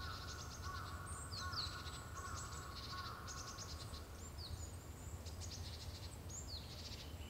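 Birds chirping, with quick high downward-sweeping calls and rapid trills, repeating throughout over a low steady hum.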